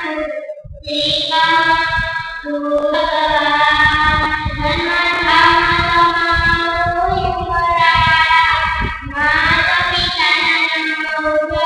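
A young girl sings a Jain devotional hymn solo into a handheld microphone. She holds long, sliding notes, with brief pauses for breath near the start and about nine seconds in.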